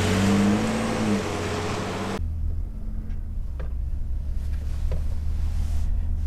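2020 Ford F-150's 2.7-litre twin-turbo EcoBoost V6 accelerating away, its engine note rising and then falling. About two seconds in this gives way to a low steady drone of the truck heard from inside the cab, with a few faint clicks.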